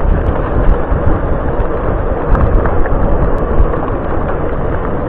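Wind buffeting the microphone of a camera on a moving bicycle, a loud steady rumble, mixed with the rolling noise of the bike on the lane and a few light clicks and rattles midway.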